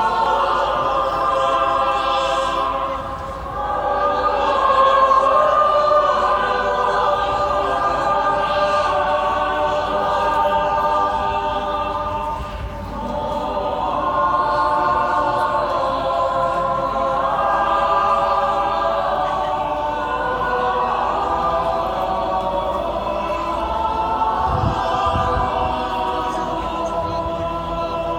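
Choral music: many voices singing long, held phrases that swell and ease, dipping briefly about three seconds in and again about twelve seconds in.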